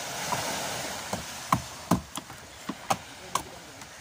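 Hammer blows on a chisel against a fibreglass boat hull: about eight sharp, irregular knocks, chipping at the damaged spot.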